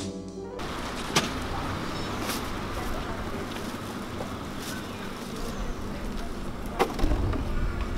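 Harmonica music cuts off about half a second in, giving way to steady street noise with passing traffic. A few sharp clicks stand out, and a low rumble comes up near the end.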